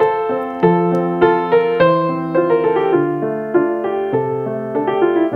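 Background piano music: a melody of evenly paced notes over held lower notes.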